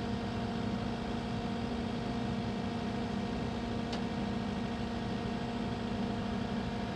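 Cat 308E2 mini excavator's diesel engine running at a steady speed: a constant hum with a few fixed tones. There is a faint click about four seconds in.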